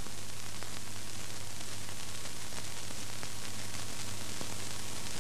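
Steady static hiss with a low hum underneath, even and unchanging, with no other sound.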